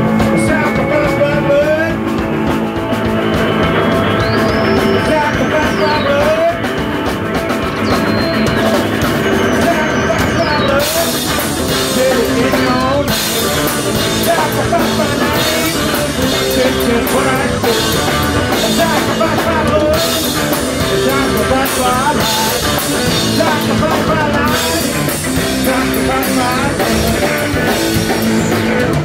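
Live rock band: sung vocals and electric guitar with gliding electronic synth sweeps. Drum kit and cymbals come in strongly about eleven seconds in.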